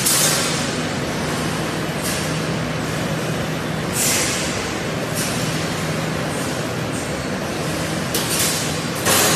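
Sausage production line machinery running: conveyors and cutting machines make a steady mechanical hum and din, with short hissing bursts every couple of seconds.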